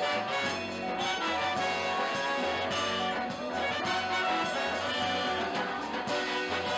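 Small jazz band playing live: trumpet and trombone lines over an upright bass line and light percussion.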